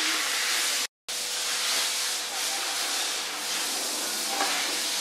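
Steady rushing hiss of air, broken by a moment of silence about a second in.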